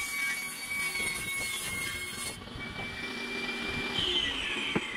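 Benchtop table saw running and cutting a sheet of plywood: a steady motor whine with a hissing cut noise that stops about two seconds in. Near the end the whine drops in pitch as the saw winds down, with a single click.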